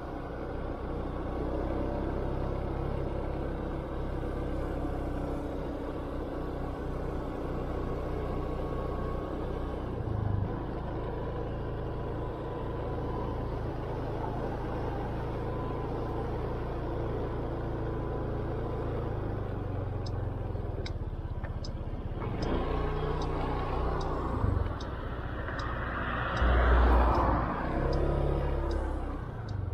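Motor scooter's small engine running steadily under way, with a low rumble of wind and road noise. About two-thirds of the way in, the turn signal starts ticking about twice a second. Near the end a louder rush of noise swells and fades.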